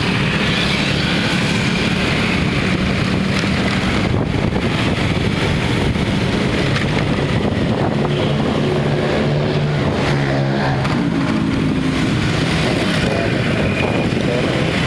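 Road traffic on a wet street: cars and motorbikes passing close by with a steady engine drone and tyre noise, one engine rising in pitch about ten seconds in. Wind buffets the microphone.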